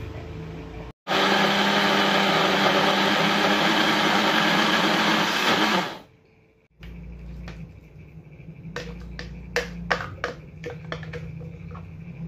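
Electric countertop blender running at a steady speed for about five seconds, grinding boiled tempe to a smooth paste, then cutting off abruptly. After a short pause comes a run of light knocks and clicks as the plastic jug is handled.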